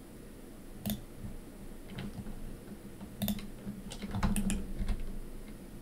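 Scattered computer keyboard key presses and clicks, a few separate taps spread over several seconds, over a faint low steady hum.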